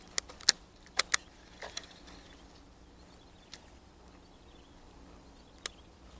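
Sharp clicks and taps from a baitcasting reel and rod being handled: a quick cluster in the first two seconds, then two single clicks later on.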